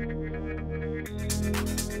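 Background electronic music: held synth chords that change about a second in, after which a quick, steady ticking beat comes in.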